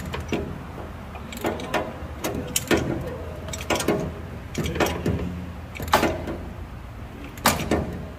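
Irregular metallic clanks and knocks, about a dozen, from hand work on a combine during an engine oil change, over a steady low hum.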